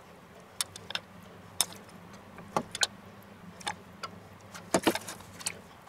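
Black slotted serving spoon clicking and scraping against a stainless steel bowl and a white casserole dish as cooked vegetables are spooned in and drop into the dish. The taps are scattered and sharp, with a quick cluster of them a little before the end, over a low steady hum.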